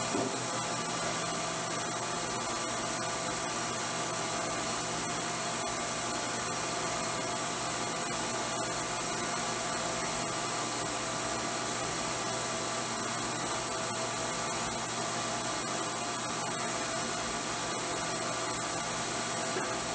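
CNC milling machine spindle running at high speed while a small engraving bit cuts lettering into a 52100 tool-steel coin die: a steady high whine over an even hiss.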